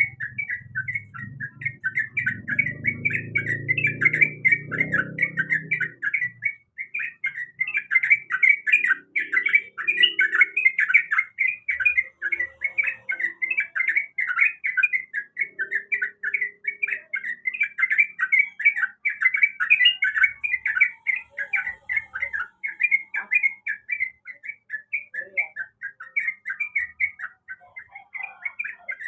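Sooty-headed bulbul (trucukan) calling: a rapid, unbroken string of short, bright notes. A low rumble sits under the calls for the first six seconds or so.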